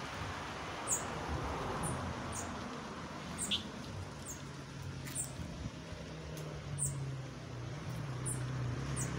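Small birds chirping: short, high, slightly falling chirps about once a second, over steady outdoor background noise. A low steady hum comes in about halfway through.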